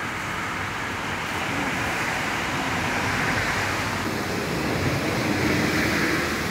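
Steady rushing hiss of wet-street outdoor noise, slowly growing louder over the last few seconds.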